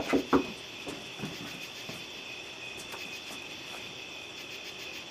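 Three quick knuckle knocks on a front door at the very start, then a steady high trilling of crickets.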